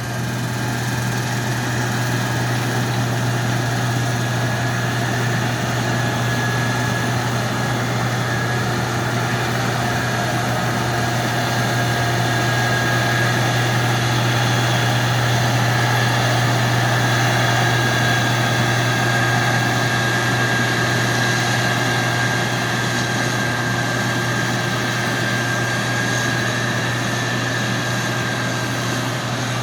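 Combine harvester running steadily while harvesting wheat: a constant engine and machinery drone with a steady higher whine over it.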